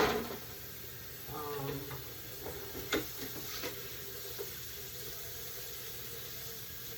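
Kitchen clatter while cooking: a sharp knock of cookware or utensils at the start, then a couple of lighter clicks over a faint steady hiss.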